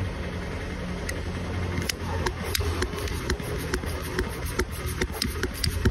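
Hand pump of a cooling-system pressure tester being worked to pressurise a car's coolant system for a leak test, giving sharp clicks about three a second from about two seconds in. A steady low engine hum runs underneath.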